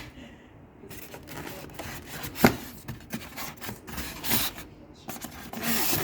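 Packaging being handled while a sewing machine is unboxed: irregular rustling and rubbing with scattered clicks, a sharp knock about two and a half seconds in, and a louder stretch of rustling near the end.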